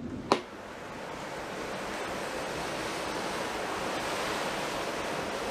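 A single click just after the start as the cabin light is switched off, then the steady rush of seawater along the hull of a moving ferry, heard from the deck with wind on the microphone, slowly growing louder.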